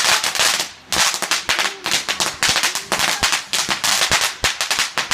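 Fireworks going off in a rapid crackling volley: many sharp bangs a second, with a hiss between them.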